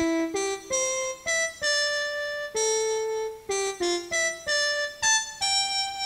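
Music: a slow melody on an electronic keyboard, one held note at a time, changing about twice a second.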